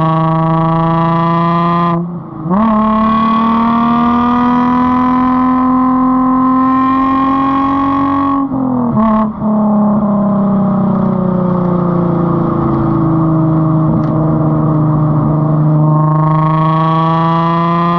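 Straight-piped Nissan 350Z's VQ35 V6 exhaust, heard right at the tailpipes, pulling under acceleration with a climbing pitch. It breaks off briefly about two seconds in and again around eight to nine seconds in, as at gear changes, then sinks slowly and climbs again near the end.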